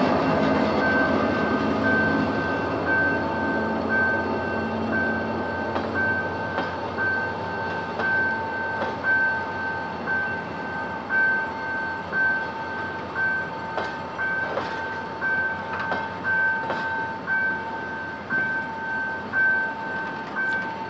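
Passenger coaches rolling past and away, their wheels clacking over rail joints roughly once a second, while the diesel locomotive's low rumble dies away in the first few seconds. Under it, a high electronic beeping, about two beeps a second, runs on over a steady tone.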